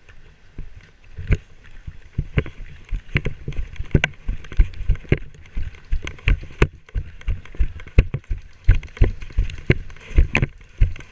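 Running footsteps of an airsoft player, a steady thud about two to three times a second starting about a second in, with gear jostling against the body-worn camera.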